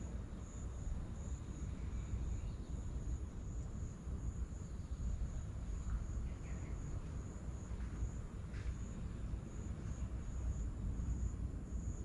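Insects chirping in a steady high-pitched pulse, a few times a second, over a low continuous rumble of sea waves, with a few faint small-bird calls.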